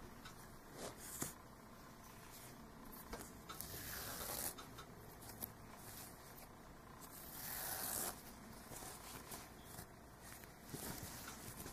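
Faint rubbing and rustling of a crocheted yarn hat being handled while black thread is sewn into it with a needle, with two longer rasping pulls of the thread through the stitches, about four and eight seconds in.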